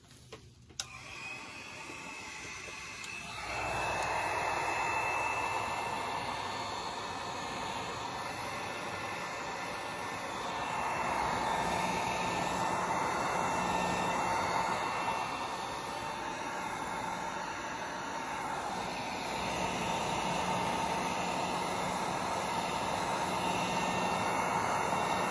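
Heat gun running over freshly poured epoxy resin, a steady rush of blown air with a whine from its fan. It comes on about a second in and swells and dips as the gun is moved over the surface.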